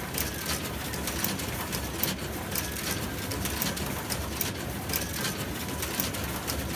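Office printer running a print job, with a steady mechanical whir and a sharp click about twice a second as sheets are fed out onto the output tray.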